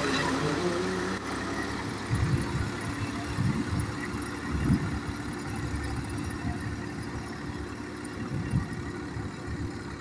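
Massey Ferguson tractor's diesel engine running steadily under load while it pulls a tine cultivator through flooded, muddy ground, with uneven low rumbling beneath the drone.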